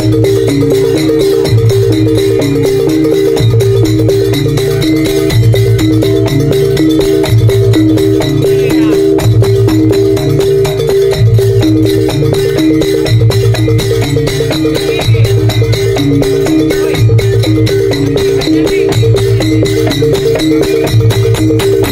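Madurese traditional gong ensemble playing: gongs struck with padded mallets give a deep note about every two seconds, under a repeating pattern of pitched notes and quick percussion.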